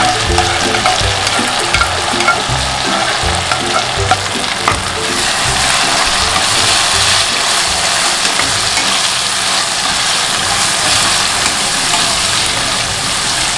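Onion-and-spice masala frying in hot oil in a pan, sizzling steadily with small crackling pops as a spatula stirs and scrapes it round.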